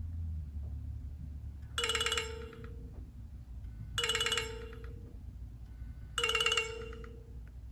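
Nokia C7-00 ringtone playing: a short electronic phrase repeated three times about two seconds apart, each ending on a held lower note.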